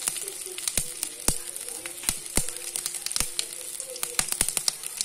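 Hot oil sizzling in an iron kadai with mustard seeds and urad dal tempering, with frequent sharp, irregular pops and crackles from the seeds.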